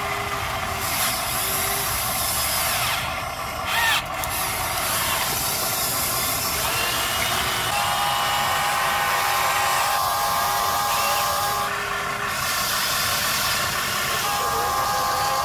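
Huina RC excavator's electric motors whining steadily as it swings and works its boom, the whine's pitch shifting as different motions start and stop, with a brief louder noise about four seconds in.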